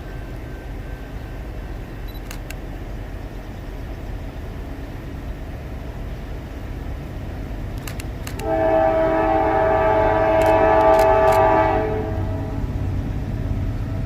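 Diesel locomotive's multi-chime air horn sounding one long blast of about three and a half seconds, over a steady low rumble.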